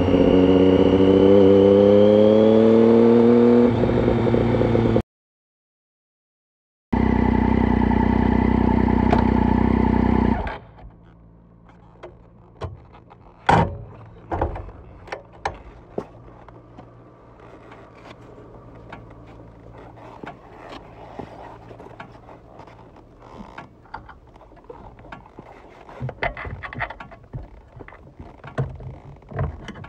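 2007 Triumph Street Triple 675 inline-three on a Roads Italia aftermarket exhaust with dB killer, pulling with rising pitch, broken by a two-second gap of dead silence, then running loud and steady before it drops away abruptly about ten seconds in. After that only a faint low hum with scattered clicks and light knocks.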